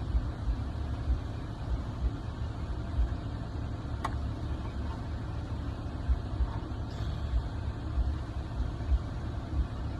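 Car engine idling, a steady low rumble, with a single sharp click about four seconds in.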